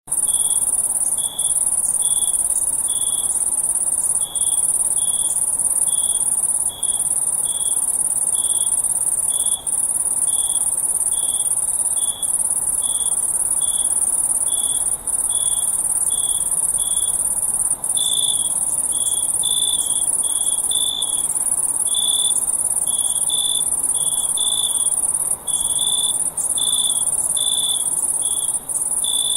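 Crickets calling: a loud, continuous high-pitched trill that briefly breaks every few seconds, over a lower series of short, evenly spaced chirps at about one or two a second. More chirps and overlapping callers join a little past halfway.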